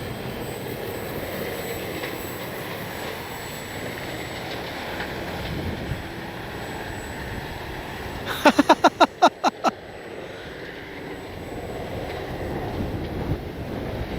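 Gusty wind on the microphone with the distant drone of an electric RC plane's brushless motor. A little past the middle there is a quick run of about seven short, loud tones.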